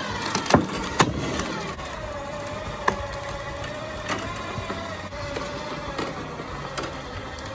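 Electric winch motor whining under heavy load as it drags a 4,000 lb pallet of concrete bags. Its pitch sinks a little at first, then holds steady, with a few sharp knocks from the rigging.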